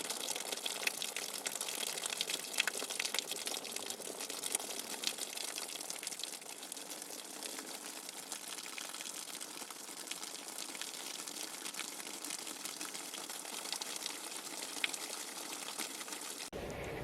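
Steady rushing, splashing water with many small crackling splashes through it. Near the end it cuts off abruptly into a different, lower background sound.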